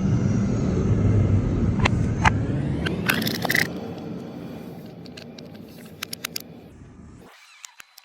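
A machine's motor running with a steady low hum, with a few sharp clicks and knocks about two to three and a half seconds in. It then fades gradually over several seconds before cutting off abruptly.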